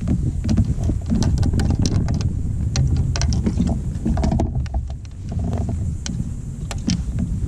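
Wind noise on the microphone, with scattered light clicks from a baitcasting reel and rod as a fish is fought on a bent rod.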